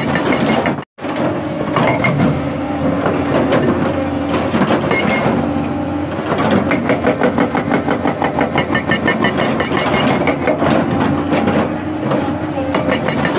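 SHS 81 hydraulic rock breaker on an excavator hammering rock, a fast, even stream of chisel blows over the running excavator engine. The sound cuts out for a moment about a second in.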